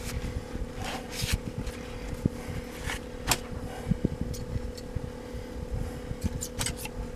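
Steady hum of a small AC axial muffin fan, with a paper towel rustling and light handling knocks here and there, mostly in the first half.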